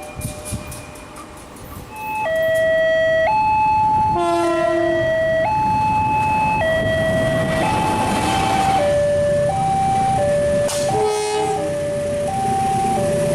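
CC 201 (GE U18C) diesel locomotive horn sounding the semboyan 35 signal over the rumble of the train. About two seconds in it starts and steps back and forth between two pitches, each held about a second; later it alternates faster, about twice a second.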